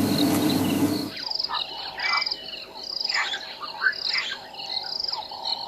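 Bush ambience of calling wildlife: a steady drone, short high trills repeating under a second apart, and scattered bird chirps. A broad hiss covers the first second and then cuts off.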